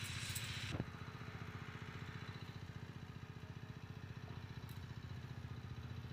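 A small engine running steadily, a low hum with a fast, even beat. A short rustle comes in the first second.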